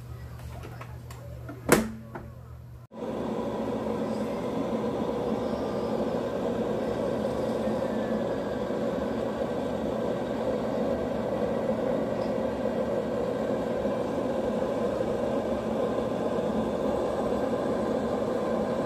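Zaigle Rolling Cooks electric roaster running with a steady, even hum from its fan as it cooks. Before the hum begins, a single sharp knock about two seconds in.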